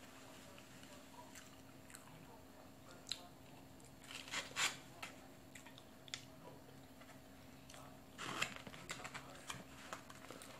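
A person eating close to the microphone: chewing and biting into food, with short crunchy, clicky mouth sounds that come thickest about four and a half and eight and a half seconds in. A faint steady hum runs underneath.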